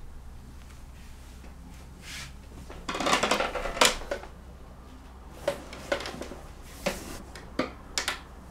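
Rustling and handling noise from a person moving about and sitting down, strongest about three to four seconds in, followed by a handful of short, light clicks and knocks at irregular intervals.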